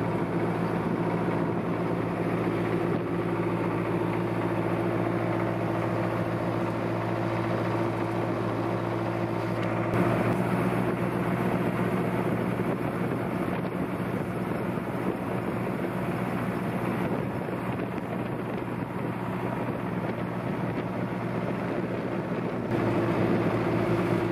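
Vintage tractor engine running steadily on the road, heard from on board, with a shift in its sound about ten seconds in and again near the end.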